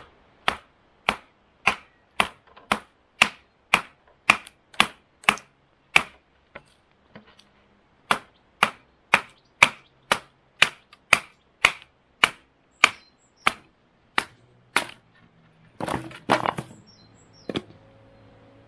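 A large fixed-blade knife chopping into a length of wood held against a post: sharp chops about two a second, a pause of about two seconds, then another run of chops. A brief clatter of wood comes near the end.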